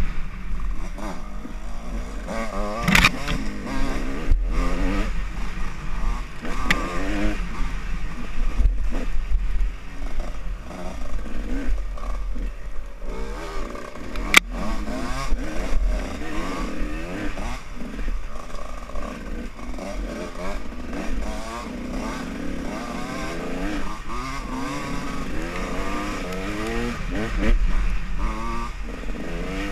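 Dirt bike engine revving up and down continuously as it is ridden along a rough trail, with a sharp knock a few seconds in and another about halfway through, and a steady low rumble underneath.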